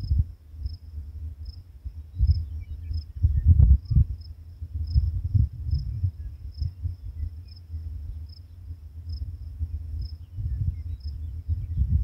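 A cricket chirping steadily, one short high-pitched chirp about every half second, over a low, gusting rumble of wind on the microphone. The wind rumble is the loudest sound.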